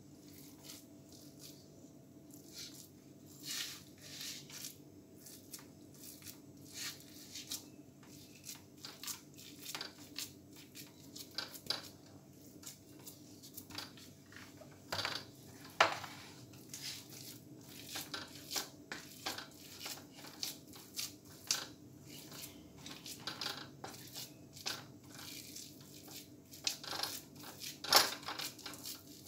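Metal spatula scraping and tapping against a metal tray while soft coconut burfi mixture is spread and pressed flat, in irregular scrapes and clicks, the sharpest about sixteen seconds in and near the end. A faint steady hum runs underneath.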